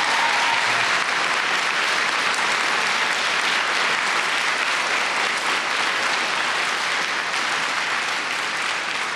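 Audience applauding, a dense even clapping that eases off slightly near the end.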